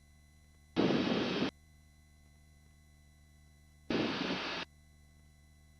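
Two short bursts of rushing noise, each under a second and about three seconds apart, with sharp starts and cut-offs, over near-silence with a faint electrical hum. They are a headset microphone on the helicopter intercom briefly keying open and letting cabin and rotor noise through.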